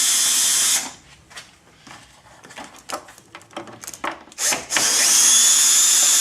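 Power driver spinning out T30 Torx screws: a steady high whine that stops about a second in, scattered clicks and knocks from the bit and screws, then a second run that starts about three-quarters through.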